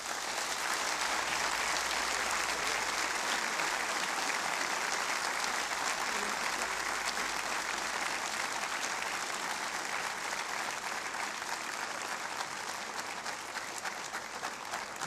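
Audience applauding steadily, slowly tapering off toward the end.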